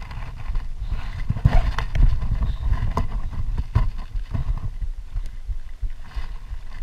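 Rumbling handling and wind noise on a head-mounted GoPro's microphone, with a few sharp knocks in the middle.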